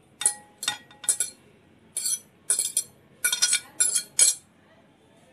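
Metal fork clinking against ceramic plates while pushing diced eggplant cubes from a plate into a bowl. There are about ten sharp, irregular clinks, and they stop a little after four seconds in.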